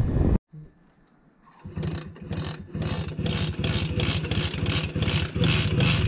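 Simson moped's two-stroke single-cylinder engine being kick-started and catching, then running with a sharp, uneven pulse about four times a second. A moment of riding noise with wind on the microphone is cut off just before.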